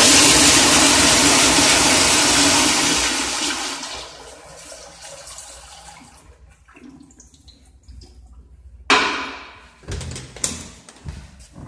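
Commercial toilet's sensor-operated flush valve flushing: a loud rush of water that dies down about four seconds in. A sharp knock comes near nine seconds in, followed by a few smaller knocks.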